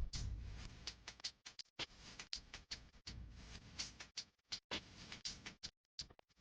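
Faint, irregular light clicks and taps, several a second, with no motor running.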